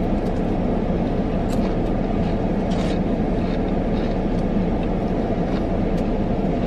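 Steady low rumble of a car running, heard inside its closed cabin, with a few faint crunches of chewing fried onion rings.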